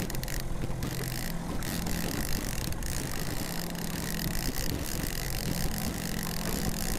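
Boat motor running steadily at trolling speed, a low hum that fades in and out, over a constant rush of wind and water.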